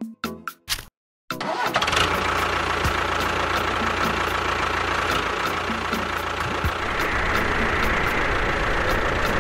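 Bouncy plopping music breaks off about a second in. After a short silence, a tractor engine starts up and then runs steadily with a low rumble.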